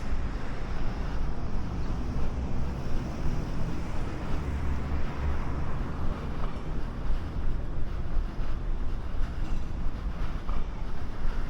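Wind buffeting a moving microphone, a steady low rumble under a general outdoor hiss.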